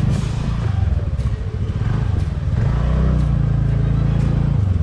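TVS Ntorq 125 scooter's single-cylinder engine running at low speed on a rutted, muddy dirt track. Its note rises a little about two and a half seconds in, holds, and drops just before the end. Faint sharp ticks come about once a second.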